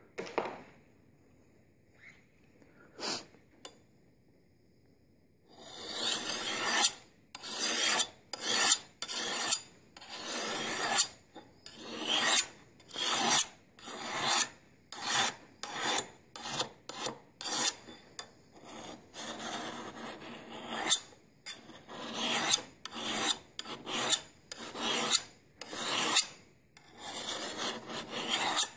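Flat single-cut chainsaw (raker) file rasping along the steel bevel of a Tramontina Bolo machete in repeated push strokes, about one and a half a second, starting about five seconds in after a few light knocks. The strokes work a convex edge, starting high on the bevel and moving closer to the edge.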